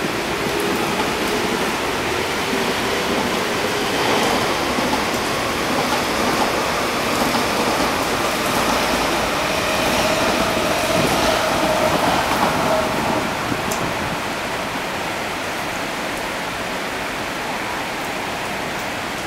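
Steady rain hiss mixed with an MTR East Rail Line electric multiple-unit train running along the wet tracks, with a faint hum from the train. It is louder through the middle and eases off over the last few seconds.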